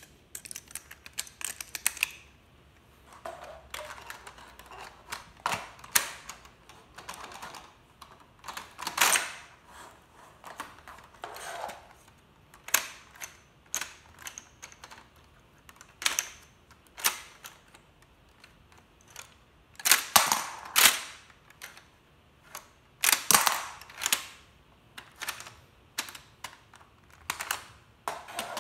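Plastic clicks and clacks of a LEGO brick rifle being worked by hand: shells pressed into its magazine and the action cycled. The clicks come irregularly, with a few louder clattering bursts.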